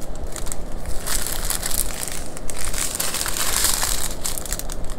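Plastic crinkling and crackling as strips of small sealed bags of diamond-painting drills are handled, irregular and continuous.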